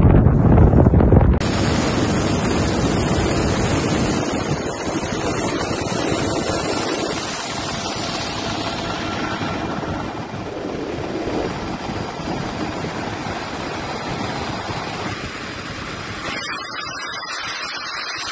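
Steady rushing noise of a helicopter in flight, heard from its open cabin door with wind blowing across the microphone. It opens with about a second and a half of heavier, lower wind buffeting.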